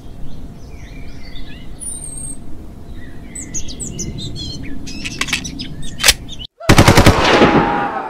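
Morning birdsong ambience, birds chirping over a steady outdoor background. About six and a half seconds in it cuts out for a moment, and a loud burst of rapid machine-gun fire follows.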